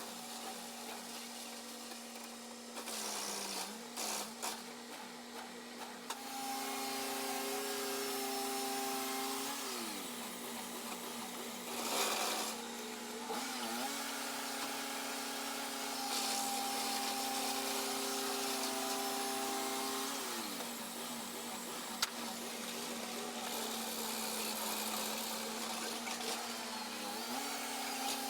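Portable bandsaw mill running while cutting lumber: its engine hums steadily, dipping in pitch and recovering several times, with the blade's hiss over it. There is a brief louder noise about twelve seconds in and a sharp click later on.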